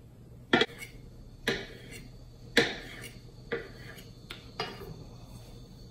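Chef's knife cutting through stacked strips of rolled, floured noodle dough, the blade knocking down onto the countertop with each cut: about five sharp cuts roughly a second apart.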